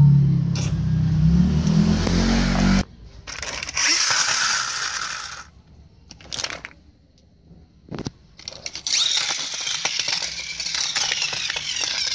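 Plastic toy trucks being pushed and handled on a carpet: a low rumble for the first few seconds, then bursts of scraping and rattling with a few sharp clicks of plastic.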